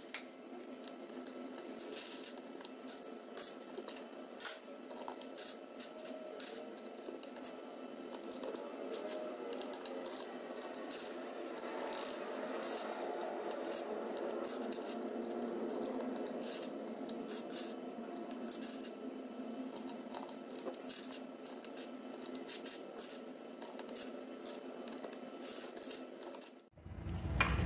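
Plastic keycaps being fitted onto a mechanical keyboard's switches: a long run of small, irregular plastic clicks with rubbing and scraping of handling between them, over a faint steady hum.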